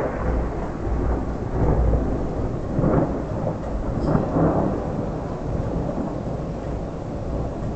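A peal of thunder breaks in suddenly, swells in several rolls over the first few seconds, then rumbles on low and slowly fades.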